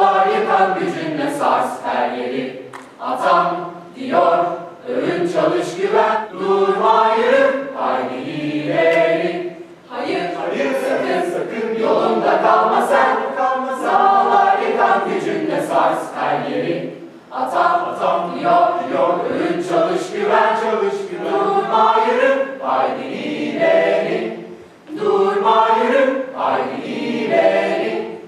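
A polyphonic student choir singing in several voices, in phrases separated by short pauses for breath.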